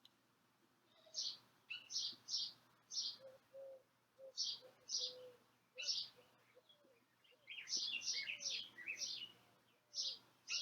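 Birds chirping: many short, high chirps in quick clusters, with some fainter, lower short notes among them.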